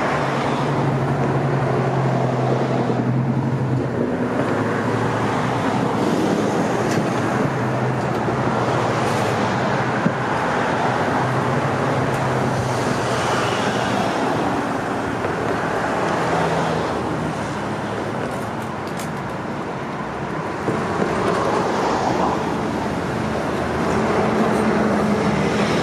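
Road traffic: motor vehicles running and passing, a steady rush of engine and tyre noise with engine hum that rises and fades.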